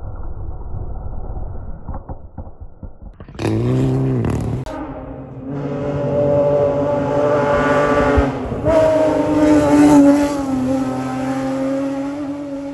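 Rally cars at speed on a gravel stage. First, fading engine noise from a car sliding past with gravel spraying; then a short engine burst; then, from about five seconds in, a rally car's engine running hard as it comes closer. The engine grows louder and rises in pitch, with a sudden jump in pitch about nine seconds in.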